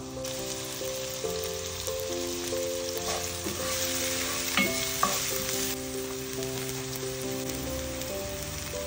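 Diced onion and zucchini dropped into hot oil in a cast-iron skillet and sizzling, with a wooden spatula stirring and knocking twice against the pan about halfway through. The sizzle eases after the stirring. Gentle background music plays throughout.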